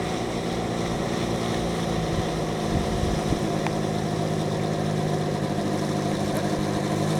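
Engine and propeller of a float-equipped ultralight trike taxiing slowly on the water, a steady low drone that grows slightly louder as it approaches.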